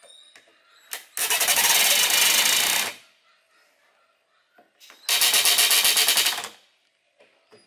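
Black+Decker cordless drill driving screws into a wooden block, in two runs of about one and a half seconds each, its motor sound carrying a rapid, even rattle. A few small handling clicks fall between the runs.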